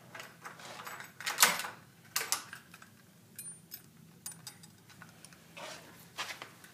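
Scattered clinks and knocks of a metal gyro assembly being handled to weigh it, the loudest knock about a second and a half in.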